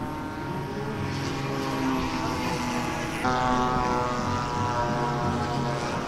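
Propeller-driven radio-controlled model airplane engine running steadily, a droning tone with many overtones that gets abruptly louder about three seconds in.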